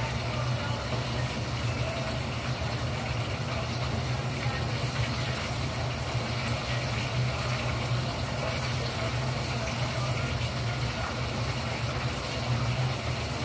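Kitchen range hood extractor fan running with a steady low hum and even air noise.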